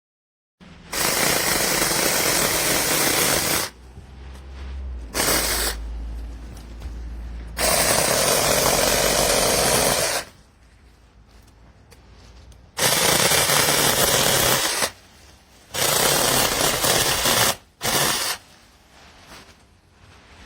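Cordless mini chainsaw with a brushless motor, its chain run in several bursts of one to three seconds each, starting and stopping with quieter gaps between them.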